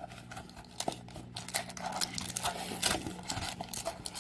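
Trading card packs and their cardboard box being handled: irregular crinkling and rustling with light taps as the packs are pulled out of the box.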